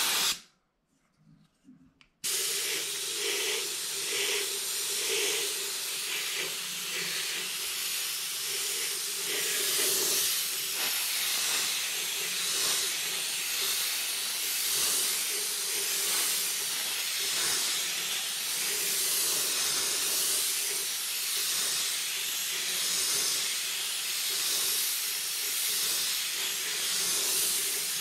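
Airbrush spraying paint with a steady hiss of air. The spray is deflected off a clothespin to lay down a random stippled speckle. The hiss cuts out just after the start and comes back about two seconds in.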